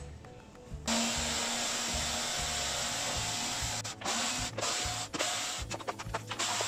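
Cordless electric screwdriver running, first steadily for about three seconds with a faint whine, then in several short bursts, backing screws out of a plastic vacuum-cleaner motor housing.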